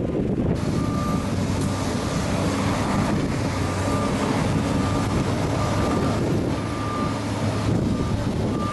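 Heavy machinery's engine running steadily while its reversing alarm beeps, a short high beep repeating about every half second, starting about a second in.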